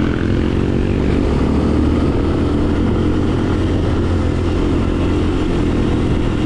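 Off-road vehicle engine running steadily while riding, a dense low rumble.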